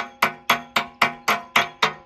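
Hammer blows on the steel of a backhoe bucket in a steady run, about four a second. Each blow rings metallically.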